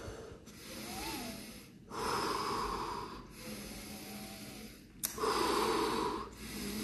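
Wim Hof-method power breathing: a man taking deep, rhythmic breaths in and out through the mouth, about one full breath every three seconds, each a rush of air. One short click about five seconds in.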